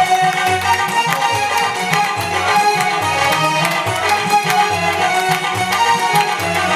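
Instrumental interlude of Arabic folk wedding music, with no singing. A steady percussion beat and a repeating bass line run under a held melody.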